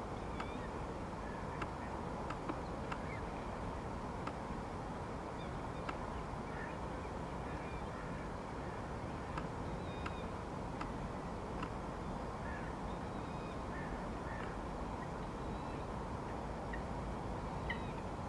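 Steady low background noise with faint, short bird calls scattered through it, coming more often near the end, and a few faint clicks.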